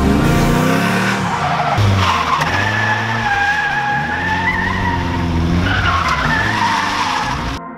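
Drift cars sliding past, first a Ford Mustang and then a Nissan 240SX S13: engines revving up and down while the tyres skid and squeal in long high tones. The sound cuts off suddenly just before the end.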